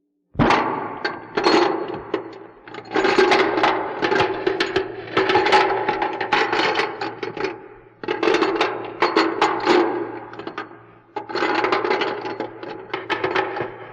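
Sudden onset of dense rattling and clattering, many quick hard knocks run together, in four long surges with brief lulls between them: a haunted-house rattle sound effect.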